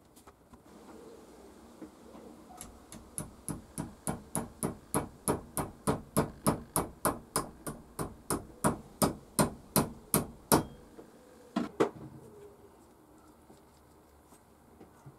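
Small hammer tapping a steel pin into a hand plane's polished lever cap resting on a towel: a long even run of sharp metallic taps, about three a second, beginning a few seconds in, then two last taps after a short pause.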